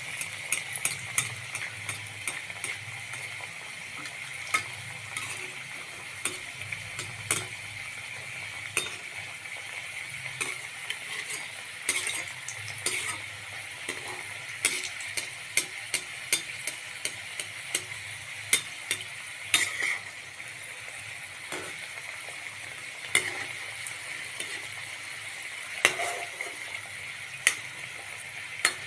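Potato samosas deep-frying in hot oil: a steady sizzle with frequent sharp crackles and pops.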